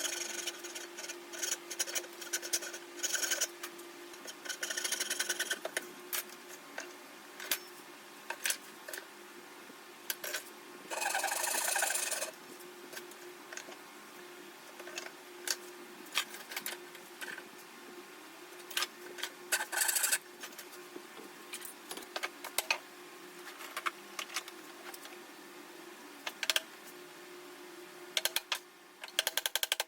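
Ryoba Japanese pull saw cutting dovetails into a 1x4 board: short spells of quick saw strokes between scattered clicks and knocks of the board and tools, over a faint steady hum.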